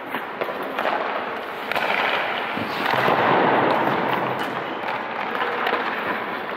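Hockey rink sounds: skate blades scraping the ice with scattered sharp clacks of sticks and pucks, swelling to their loudest about halfway through.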